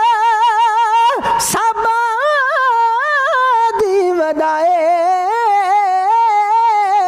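Punjabi Sikh devotional dhadi music: a single sustained melody line, held and ornamented with wavering turns, continuing with only short breaks and a brief hiss about a second in.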